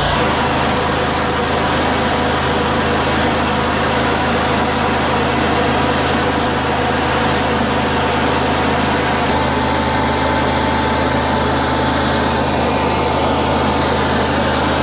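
High-pressure drain jetter running steadily: the pump's even drone under the hiss of water jetting from a Direct Hit nozzle inside a pipe. The nozzle was put back together wrongly, so it throws a plain steady stream rather than its proper cutting spray.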